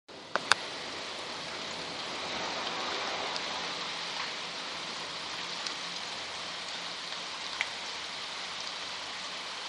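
Steady rain falling in a storm, swelling slightly a couple of seconds in, with a few sharp ticks of drops striking, the loudest near the start.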